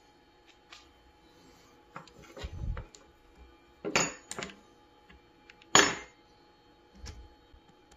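Metal tools being handled: a few sharp metallic clinks, the loudest about six seconds in, and a couple of dull knocks, over a faint steady hum.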